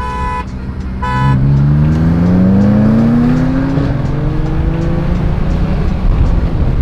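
A car horn gives two short toots. A car engine then accelerates hard, its pitch rising steadily for about four seconds before levelling off into a steady run.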